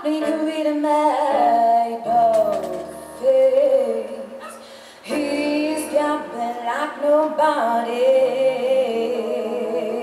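A woman singing a pop song into a handheld microphone over backing music. It drops to a softer stretch about three and a half seconds in, and the full music comes back in about five seconds in.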